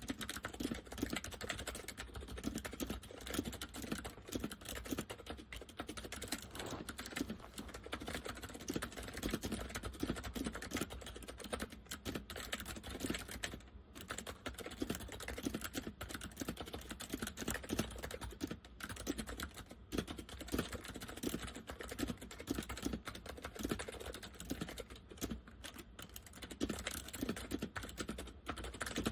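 Continuous fast typing on an Acer 6312K7 keyboard with Acer semi-mechanical switches in a KB101A-style chassis: a dense run of clicky keystrokes with a deep sound from the case, pausing briefly about halfway through.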